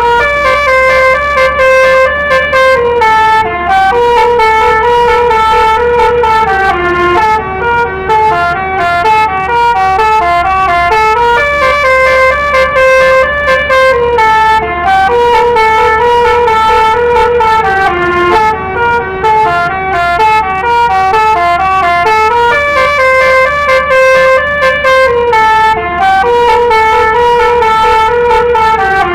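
Basuri telolet musical bus horn playing a repeating multi-note melody, its pitch stepping up and down from note to note, over a steady low hum.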